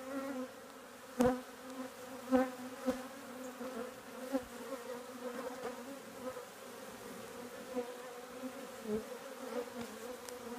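Honeybees buzzing around an opened hive: a steady, even hum, with a few sharp clicks in the first three seconds.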